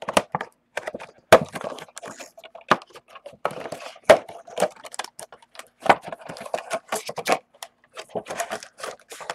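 A cardboard box of trading-card packs being opened and emptied by hand: a run of sharp cardboard cracks, clicks and knocks with rustling between them.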